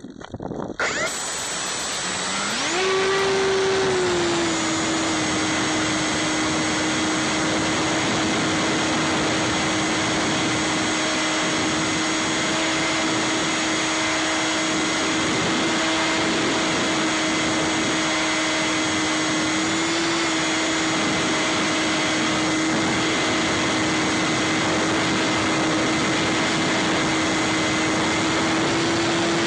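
Electric motor and propeller of a Bix3 foam FPV plane, picked up by the onboard camera. The whine rises in pitch about two seconds in as the throttle opens for the climb-out, then holds a steady high drone over a rush of air.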